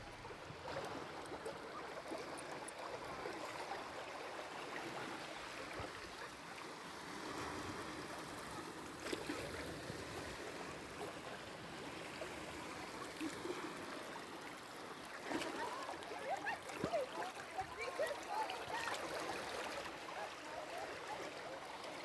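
Shallow water running across beach sand in a steady rush, with busier, louder spells a little past the middle.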